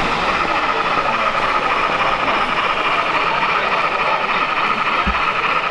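N scale model train running on a layout: a steady mechanical whir with a constant high hum, over the general noise of a busy hall, with one short low thump about five seconds in.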